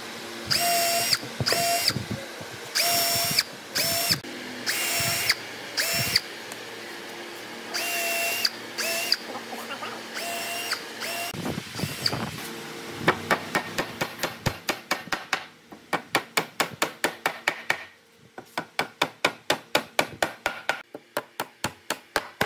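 Cordless drill boring into hardwood in repeated short bursts, each a steady whine. After about the halfway point it gives way to a fast, even run of sharp taps, about four a second with a short break, from a hammer driving nails into the planks.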